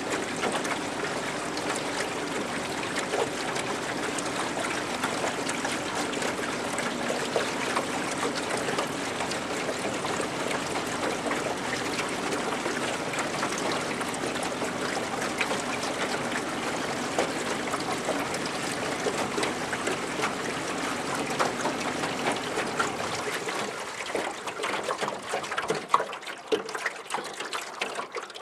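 Lake water lapping and trickling against a small boat's hull, a steady wash of small splashes that thins out to scattered slaps and drips in the last few seconds.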